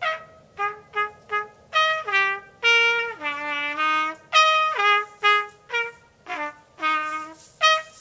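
Solo trumpet improvising a melody: runs of short, detached notes with a few longer held notes in the middle.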